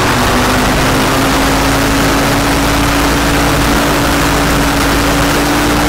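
Rotax 503 two-stroke twin-cylinder engine running steadily on a Challenger 2 ultralight, with its propeller turning. The engine note rises slightly in the first second, then holds steady.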